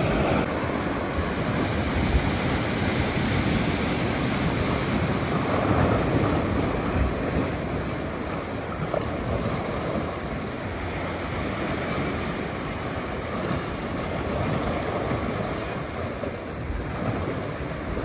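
Ocean surf breaking and washing over a rocky shoreline and tide pools, a steady rush of water that swells and eases as the waves come in.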